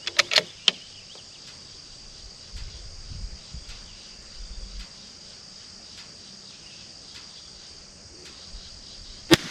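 Crickets chirring steadily in the background, with a few light clicks near the start. Near the end comes a single sharp .22LR rifle shot, the loudest sound here.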